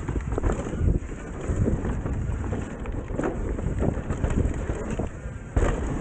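Mountain bike ridden fast down a dirt trail, heard from a camera on the bike: wind buffeting the microphone, tyres rumbling over the dirt, and frequent knocks and rattles as the bike hits bumps. The noise jumps suddenly louder a little before the end.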